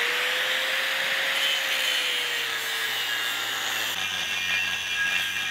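Corded angle grinder cutting into a steel wheel rim: a steady grinding hiss, with a whining tone that rises slightly, holds, then sags and fades about three seconds in.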